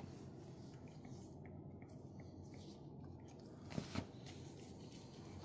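Faint wet squishing of lubricant gel squeezed from a plastic bottle and worked between gloved hands, with a couple of louder squelches about four seconds in.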